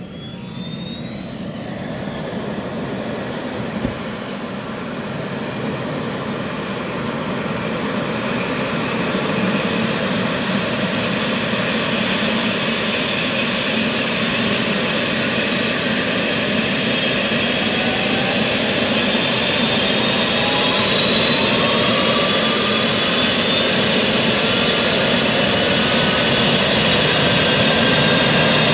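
Eurocopter EC135 rescue helicopter starting up: a turbine whine rises steadily in pitch as the engines and rotor spool up, and the whole sound grows steadily louder. A second rising whine joins partway through.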